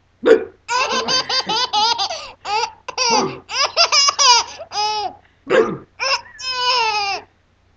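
Baby laughing in rapid high-pitched bursts, ending in a longer laugh that falls in pitch. It opens with a short, loud sound lower in pitch than the laughter.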